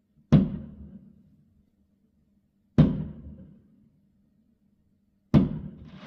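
Three firework aerial shells bursting, each a sharp bang that fades away over about a second, spaced about two and a half seconds apart.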